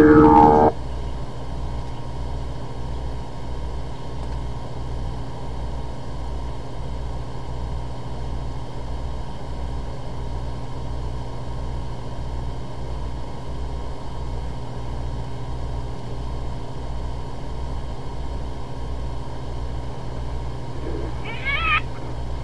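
A didgeridoo drone stops in the first second, leaving a steady hum with a low throb about one and a half times a second. Near the end a spotted hyena gives a short high rising squeal.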